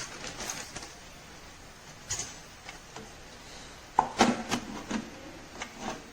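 Hard plastic food-processor parts being handled and set down: a few clicks and knocks, with a cluster of sharp ones about four to five seconds in.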